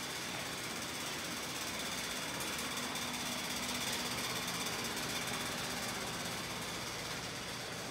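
Steady machinery noise, with a faint low hum joining about two and a half seconds in and fading out a few seconds later.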